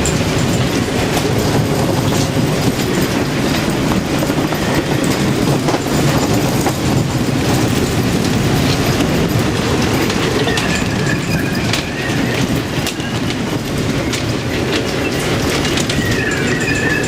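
Loud, steady roar of storm wind and heavy seas around a sailing yacht, with faint whistling tones coming and going in the second half.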